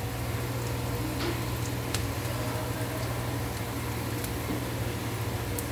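Steady low hum under an even hiss, with a few faint isolated clicks.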